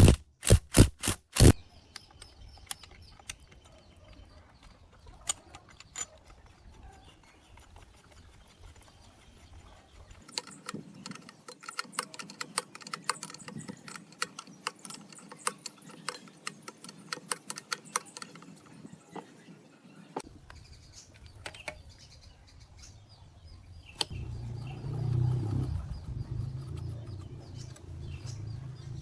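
Metal parts being handled and worked. A quick run of loud clicks comes right at the start, then scattered light taps, a long stretch of dense ticking in the middle, and a low rumbling noise near the end.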